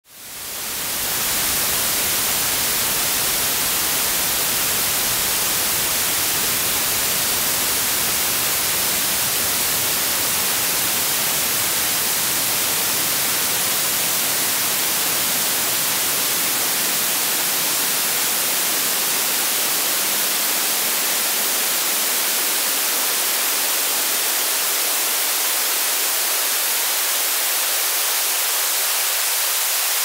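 Synthetic white noise played through a high-pass filter whose cutoff sweeps slowly upward, to about 470 Hz by the end, so that the low end of the hiss gradually drops away. The noise fades in over the first second or so and then holds a steady level.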